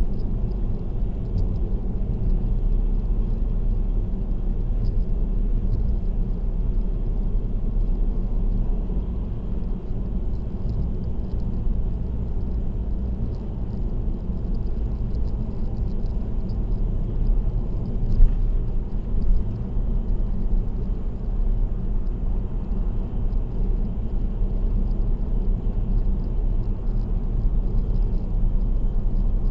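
Steady low road and tyre rumble of a car cruising on an expressway, with two brief thumps a little past the middle.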